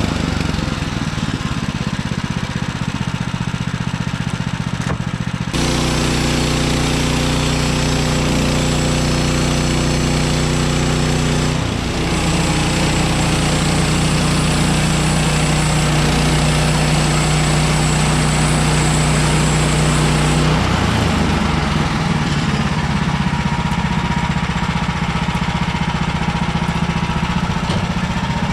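Small gasoline engine of a portable sawmill running steadily, its tone shifting abruptly three times as the load on it changes.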